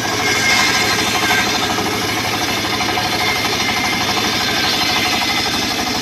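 Homemade circular sawmill ripping a timber plank lengthwise, the saw blade cutting through the wood over the steady, rapidly pulsing running of the engine that drives it.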